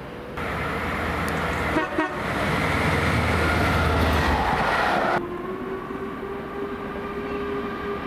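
Class 390 Pendolino electric train rushing past at speed, a loud even roar with a few clicks about two seconds in. The roar cuts off suddenly about five seconds in, and a quieter steady tone follows, rising slightly in pitch.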